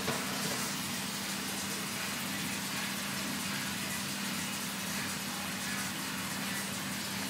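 Steady mechanical hum: a constant low tone under an even hiss, with no change in pitch or level.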